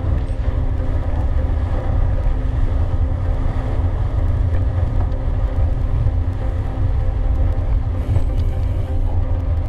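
Steady low wind rumble on the microphone, with rolling noise from a gravel bike in motion.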